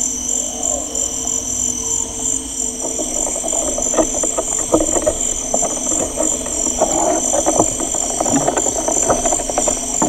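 Amazon rainforest soundscape: a steady high trilling in several bands, one of them pulsing rapidly, over a low steady hum. From about four seconds in, a dense, irregular crackle of short clicks joins it.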